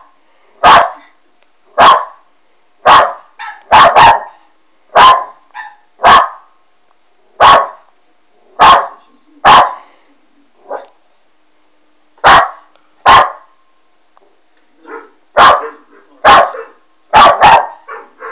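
West Highland White Terrier puppy barking, short sharp barks about once a second, with a couple of brief pauses.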